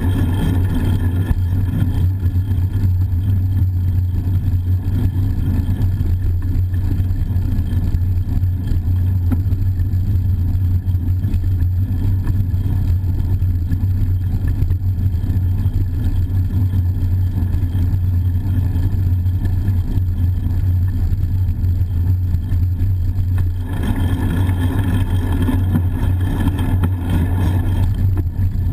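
Steady low wind rumble on a handlebar-mounted GoPro HERO-960's microphone as the bicycle rides along a street, with a haze of road noise. The noise grows fuller near the start and again for a few seconds near the end, where traffic passes.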